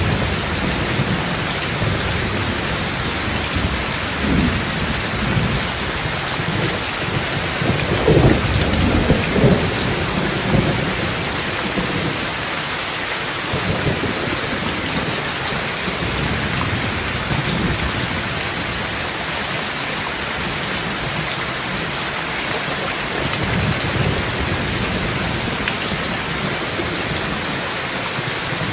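Steady rain with rolling thunder, the deep rumbles loudest about eight to ten seconds in and then dying away while the rain keeps falling.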